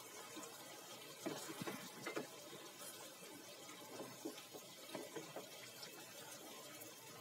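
Wooden spatula stirring chicken pieces through a wet masala and yogurt gravy in a pot, with soft, irregular scrapes and wet squelches over a faint steady frying hiss.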